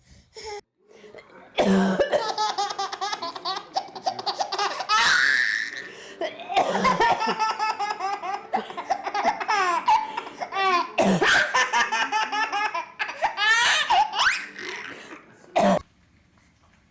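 Hearty, pulsing laughter in three long bouts with short breaks between them, stopping about a second before the end.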